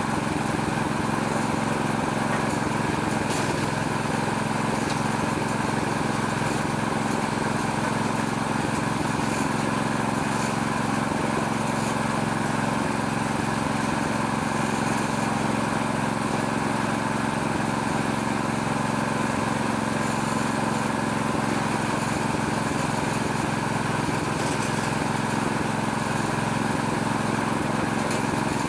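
Small Robin-type single-cylinder petrol engine running steadily at constant speed, driving a homemade machine that strips oil palm fruitlets from the bunch.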